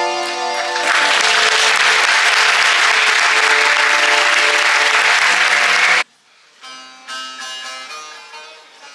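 A held chord of music ends within the first second, and an audience applauds loudly for about five seconds. After an abrupt cut, a bağlama (long-necked Turkish lute) is plucked solo, much quieter, note by note.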